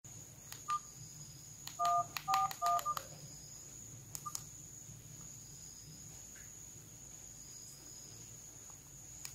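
Nokia 150 keypad sounding DTMF tones: one short beep, then about two seconds in three quick two-tone beeps as 1-4-1 is dialled, and another short beep about four seconds in. After that only a faint steady high whine is heard while the call connects.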